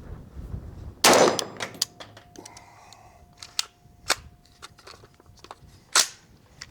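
Two shots from an IWI Jakl 5.56 rifle, about a second in and again near the end, the first with a long fading tail, with a few light clicks between them. Its adjustable gas block is still turned down for a suppressor, so the rifle is short-stroking and not cycling properly.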